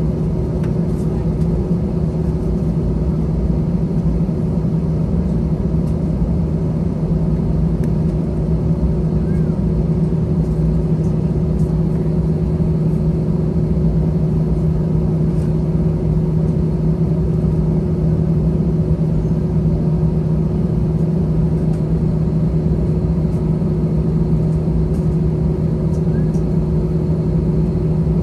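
Cabin sound of an Airbus A321-211's CFM56-5B engines running steadily at low taxi thrust: an even low rumble with a constant hum, and a few faint ticks.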